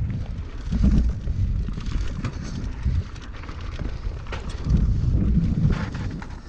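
Wind buffeting the mountain bike's action-camera microphone as it rolls down a dirt trail, swelling into gusts about a second in and again near the end. Scattered clicks and rattles from the tyres on the gravel and the bike over the bumps come through underneath.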